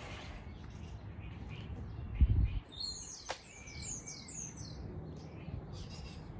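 Garden birds chirping and singing, with a run of high descending whistled notes in the middle. A low thump a little after two seconds, then a single sharp click about a second later as the break-action shotgun is snapped shut.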